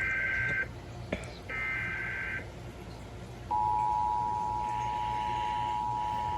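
NOAA Weather Radio emergency alert coming through a receiver. First come two short bursts of warbling digital SAME header tones. About three and a half seconds in, the steady 1050 Hz warning alert tone starts and holds.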